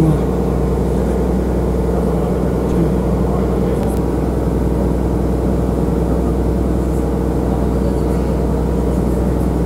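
Small passenger boat's engine running steadily under way, a constant low drone with a steady hum that does not change in pitch or loudness.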